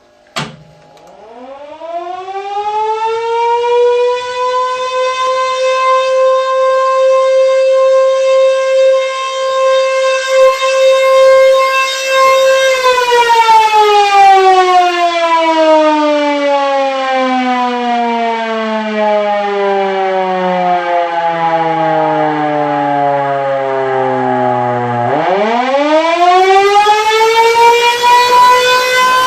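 Motor-driven civil-defence siren sounding the fire-alarm signal, one steady tone with a short pause, then another. A click, then the siren winds up to a steady high tone and holds it for about nine seconds. Then it switches off and runs down in a long falling whine, and about 25 seconds in it winds up again for the next blast.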